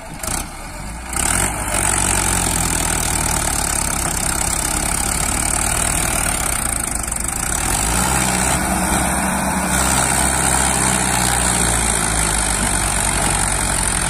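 Diesel engines of a Mahindra Arjun 555 DI tractor and a JCB 3DX backhoe running hard under load as the backhoe pushes the tractor's mud-stuck loaded trolley. The engines come up sharply about a second in and hold steady, with the engine note climbing around eight seconds in.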